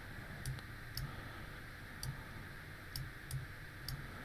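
Computer mouse clicking, about six scattered single clicks over a faint steady hiss.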